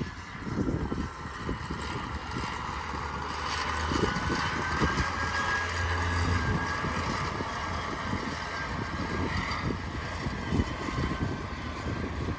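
Wind buffeting the microphone in irregular gusts, over a steady mechanical drone.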